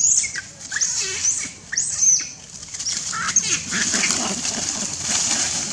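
Macaques screaming: a quick run of short, shrill screams, several in the first two seconds and more about three seconds in, as the monkeys chase one another.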